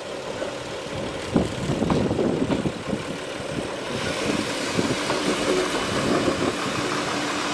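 Steam locomotive running with a steady mechanical rumble and a few knocks, joined by a hiss that grows stronger about halfway through.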